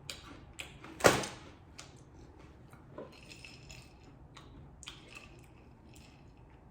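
Close-up crunching and chewing of crunchy rolled tortilla chips (mini Takis Fuego): a loud sharp crunch about a second in, then quieter crackling chews.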